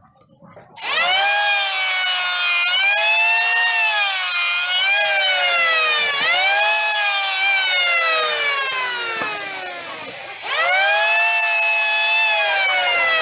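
Corded electric hand planer starting up about a second in and running with a loud whine. Its pitch sags and recovers again and again as it is pushed through the wood under load. About ten seconds in it slows briefly, then comes back to full speed all at once.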